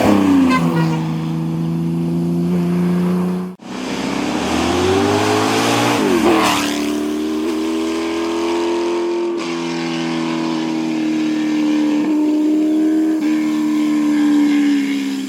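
Historic racing car engines running hard under acceleration in two clips cut together. In the second, the engine note climbs and then drops sharply as the car goes by.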